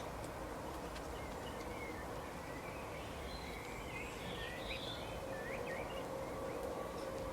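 Several songbirds chirping and twittering in short calls, busiest in the middle few seconds, over a steady background rumble with a faint constant hum.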